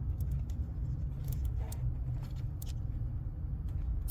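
Scattered light clicks and rattles of a plastic wiring-loom mount being unclipped and turned over, over a steady low rumble.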